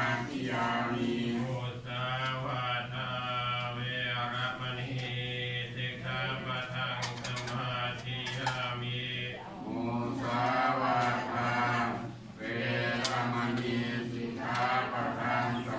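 Theravada Buddhist monks chanting in unison, a steady low Pali recitation with two short breaks in the middle.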